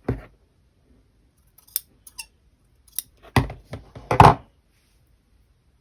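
Fabric scissors snipping: a few light clicks, then two louder cuts about three and a half and four seconds in.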